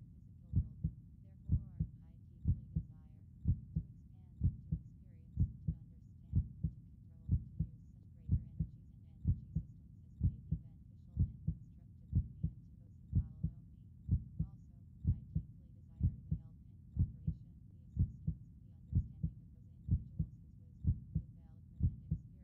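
Heartbeat track: a steady lub-dub double beat, about one beat a second.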